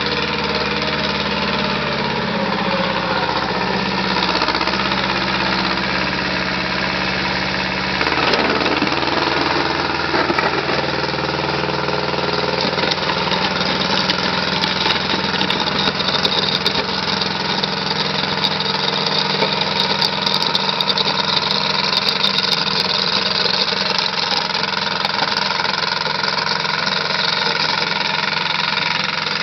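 Kubota L185DT compact diesel tractor engine running steadily while working, with the engine note shifting about eight seconds in.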